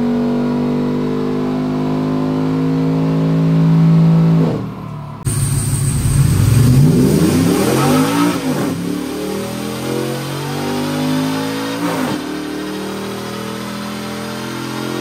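Cammed L86 6.2-litre V8 in a Silverado running hard under load on a chassis dyno, holding high revs with the pitch creeping up. About four and a half seconds in it briefly drops away, then comes back louder. The pitch then falls over several seconds and settles to a lower, steady running sound near twelve seconds.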